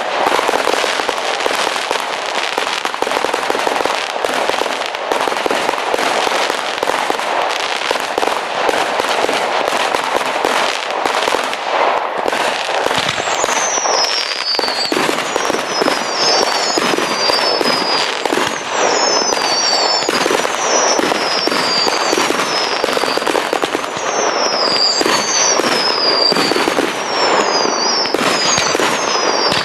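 Fireworks display: a dense, continuous crackle of many small bangs. From about halfway on come repeated high falling whistles, roughly one a second.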